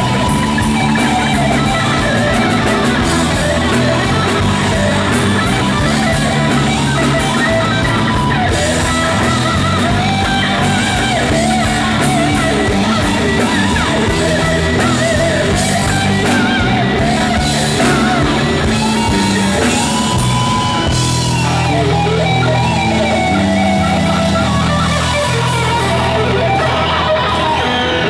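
Live rock band with an electric guitar solo on a Stratocaster-style guitar: a lead line with bent and long held notes over bass and drums.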